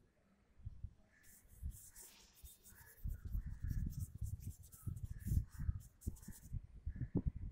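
Paintbrush brushing over watercolour paper in quick scratchy strokes. From about three seconds in, a run of irregular dull low thumps and bumps is louder than the strokes.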